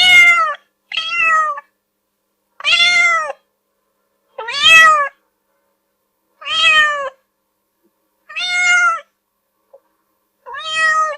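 A domestic cat meowing seven times, each meow rising and then falling in pitch, with short pauses between them.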